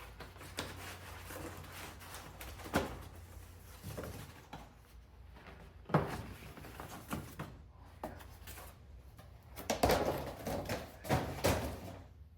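Hard objects being handled and set down, with a series of sharp knocks and clatters, the loudest about six seconds in and a cluster of them near the end, over a low steady hum.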